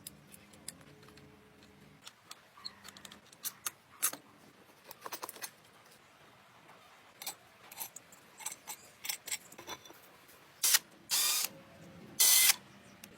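Small hand tools and parts being worked: scattered clicks, ticks and light scraping. Near the end come three louder rushing bursts.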